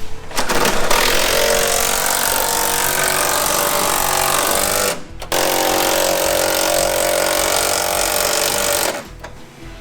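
A handheld power tool running hard in two long bursts, with a short break about five seconds in, and stopping near the end.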